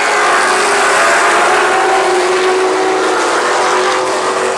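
A pack of late model stock cars at race speed: many V8 engines running together in a loud, steady chorus, their pitches sliding slightly lower as the field passes through the turn.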